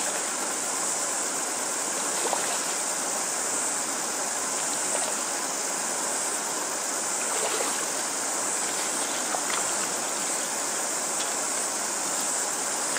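River water rushing steadily through a shallow, stony run, with a few faint splashes from a hooked trout being drawn in through the shallows.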